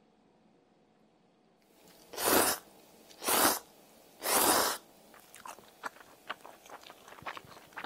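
A person slurping ramen noodles in three loud slurps, about a second apart, starting about two seconds in, then chewing them with many small wet clicks and smacks.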